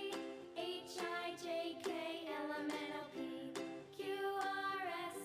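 Light background music for children: a bright melody over evenly spaced plucked notes, played softly.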